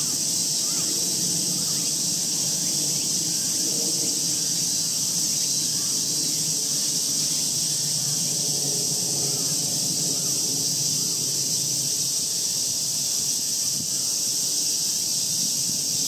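Steady, high-pitched chorus of summer insects droning without a break.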